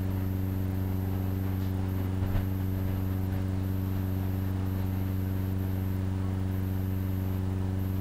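Steady low hum with a row of evenly spaced overtones, unchanging in level, with one faint knock about two seconds in.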